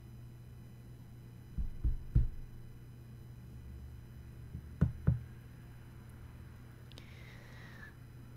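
Knocking on a door: two sets of about three knocks a few seconds apart, over a low steady hum. A short breath-like sound near the end.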